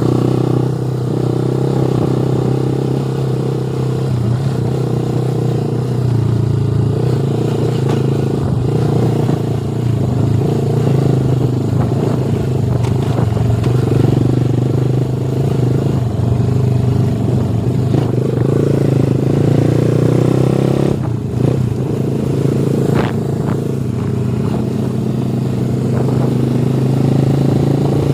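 Motorcycle engine running at a steady speed while riding, with a brief click about three-quarters of the way through.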